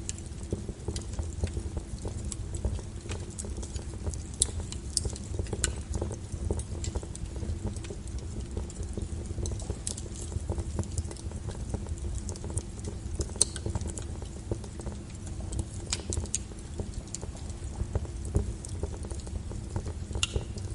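Wood fire burning in a fireplace: a steady low rumble of flames with frequent irregular crackles and sharp pops.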